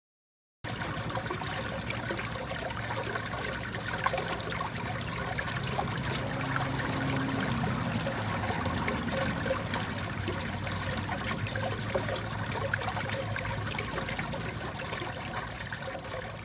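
Running water, a stream flowing steadily, which starts suddenly less than a second in after a brief silence.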